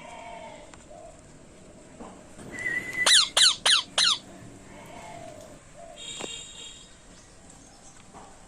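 Ringneck parrots squawking: four loud, sharply falling screeches in quick succession about three seconds in, then a shorter harsh call near six seconds.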